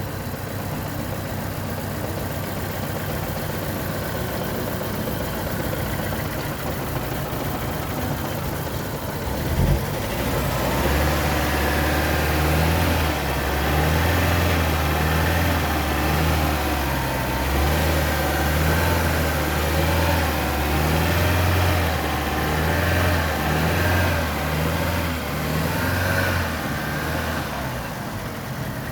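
2015 Vauxhall Zafira 1.4 turbo four-cylinder petrol engine running with a misfire. A steady hum for the first ten seconds, a single knock, then a loud, uneven low engine note that wavers and breaks up until near the end.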